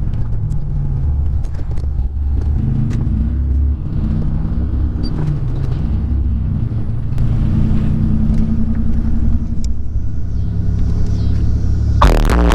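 Buick Century running, a steady low rumble heard from inside the car. Music starts just before the end.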